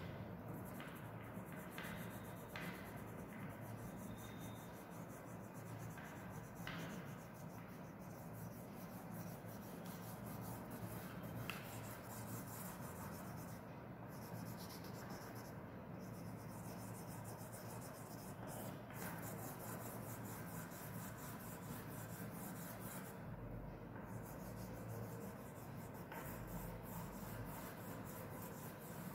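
Oil pastel crayon rubbing back and forth on paper, faint and steady, as a large area is shaded in.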